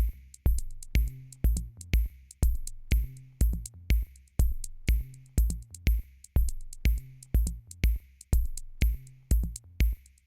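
Background music with a steady electronic drum beat, about two kicks a second.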